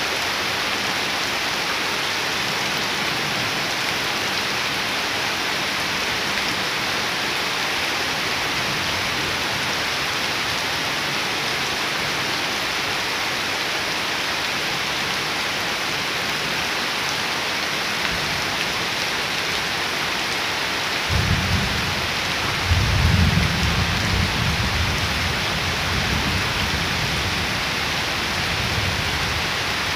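Heavy rain falling steadily onto waterlogged ground and leaves, with a low rumble of thunder coming in about two-thirds of the way through and fading over several seconds.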